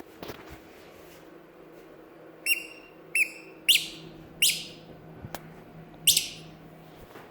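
Five short, high-pitched chirps or squeaks, spaced unevenly over a few seconds, each one sharp at the start and quickly fading.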